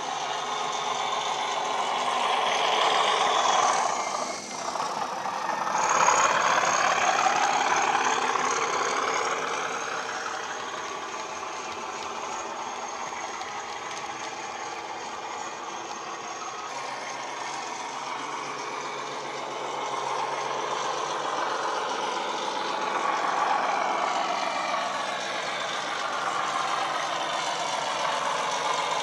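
Class 37 diesel locomotive sound from an ESU LokSound hi-fi DCC sound decoder, played through a model locomotive's small speaker as it runs: a simulated English Electric diesel engine working under power. It swells twice in the first several seconds, with a brief dip between, then settles to a steadier running note that builds again later.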